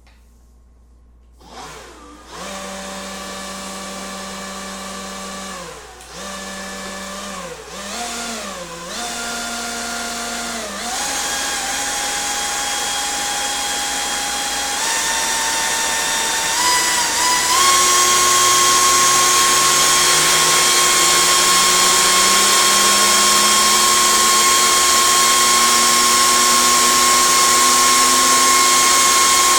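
Leaf blower running loud, starting about a second and a half in, dropping briefly twice, then stepping up in speed in stages, with its whine rising in pitch, as it blows a fidget spinner from slow to fast. Through the second half a low hum climbs steadily in pitch.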